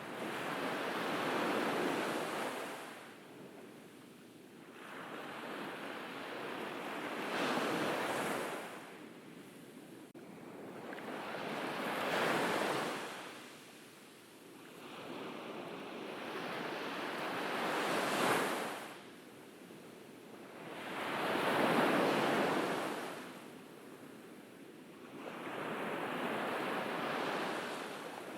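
Ocean waves breaking on a beach, each one swelling and washing out, one about every four to five seconds.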